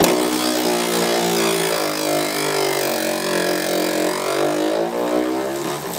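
Cordless electric ratchet running continuously to back out a rusty 10 mm bolt: a steady motor whine that sags slightly in pitch midway and then recovers.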